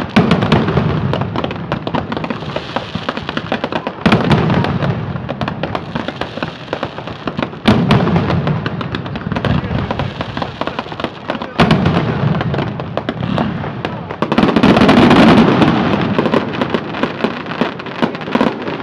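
Fireworks display: heavy booms of bursting aerial shells about every four seconds over constant crackling and popping, with a denser, louder barrage about three-quarters of the way through.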